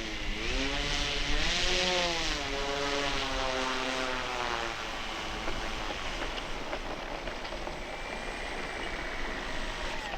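Electric motor and propeller of an FMS de Havilland Beaver RC model taxiing, the whine dipping and rising in pitch with the throttle, then throttled off about four and a half seconds in. Steady wind noise on the microphone continues underneath.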